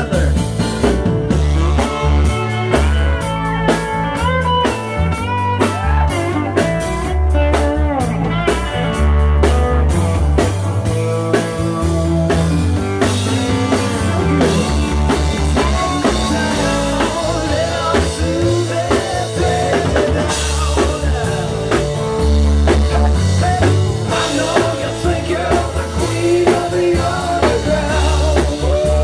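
Live band playing: guitar over a drum kit, with a steady beat.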